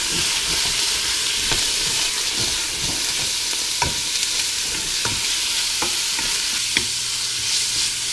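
Beef cubes and onions sizzling in oil as they brown in a stainless steel stockpot, a steady hiss, while a wooden spoon stirs them and knocks lightly against the pot every second or so.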